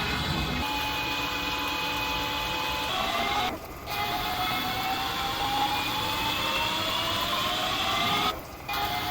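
Metal lathe running under power, its machine whine rising steadily in pitch, broken twice by brief drops in level, about three and a half and eight seconds in.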